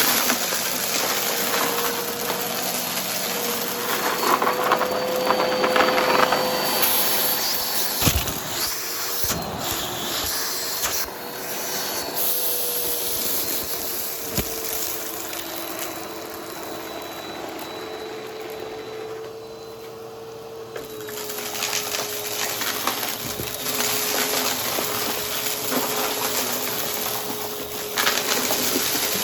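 Vacuum cleaner with a spinning brushroll running steadily, its motor holding a steady whine that shifts slightly in pitch, over a rushing airflow hiss with crackling from crunchy debris being sucked up.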